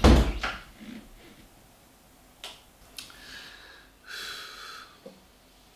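A loud thump at the very start, then two faint clicks and a man's breathy sigh about four seconds in.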